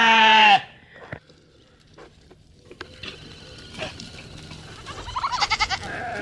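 Sheep bleating: a loud, long bleat cuts off about half a second in, then after a lull with a few faint knocks comes a quieter, quavering bleat near the end.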